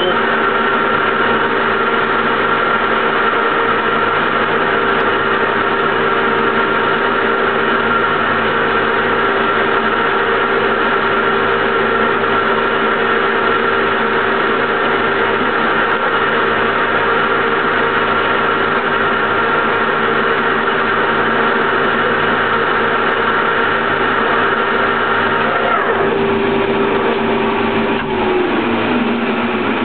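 Soviet 1K62 lathe running at 20 RPM spindle speed while tapping an M24×1.5 thread into a steel nut, its motor and gearbox giving a steady whine of several tones. Near the end the upper tone drops out and the lower ones fall in pitch as the machine winds down.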